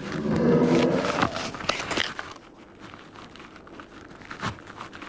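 Brown bear growling for about two seconds, then quieter scratching and crunching as its claws work on tree bark and snow.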